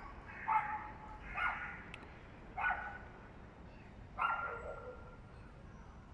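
A dog barking repeatedly: four barks at uneven gaps of about one to one and a half seconds.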